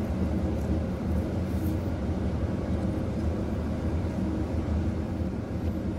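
Steady low droning hum of ship's machinery running in the background, even in level throughout.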